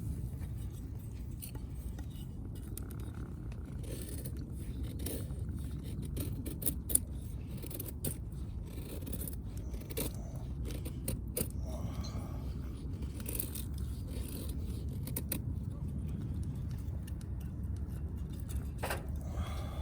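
Firewood burning in a campfire, crackling with scattered sharp pops and snaps over a steady low rumble, one pop much louder about seven seconds in.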